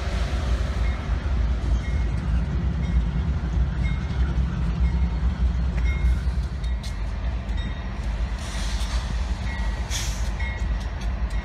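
GE Dash 8 diesel locomotives running close by with a steady low engine rumble. Faint short high squeaks come and go over it.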